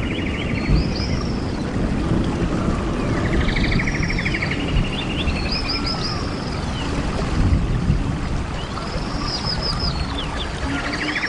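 Steady rush of a distant jungle waterfall. Over it a bird sings the same phrase again and again, about every three seconds: a rapid trill, then high arching notes that fall away.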